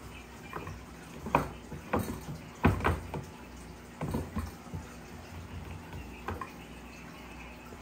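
Wooden pestle pounding fried plantains with garlic butter in a wooden pilón, mashing them into mofongo: a string of irregular dull, wet thuds, strongest about three seconds in, ending about six seconds in.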